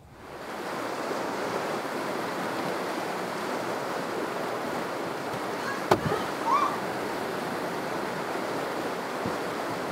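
White water rushing through a rocky river rapid: a steady noise of fast water that fades in at the start. A single sharp knock comes about six seconds in.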